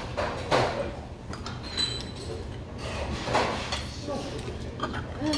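Metal ladle scooping and clinking against a stone pot and a ceramic bowl as soup is ladled out, a few separate scrapes and clinks, one ringing briefly, with low voices underneath.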